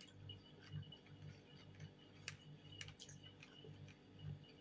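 Near silence: faint, irregular clicks of chewing and a fork touching a plate while someone eats fish, over a faint low hum.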